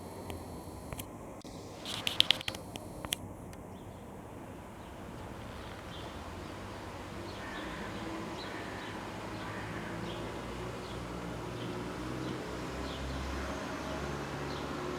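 Outdoor countryside ambience: faint short high chirps repeat about once a second over a low steady rumble, with a few clicks and knocks in the first few seconds.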